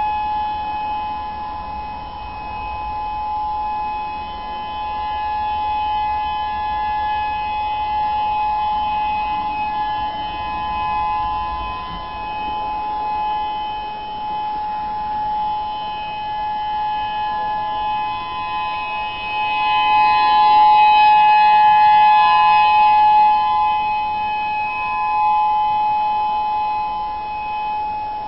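Whelen 3016 electronic outdoor warning siren sounding a steady, single-pitch alert tone during a monthly siren test. Its loudness swells and fades, and it is loudest about twenty seconds in.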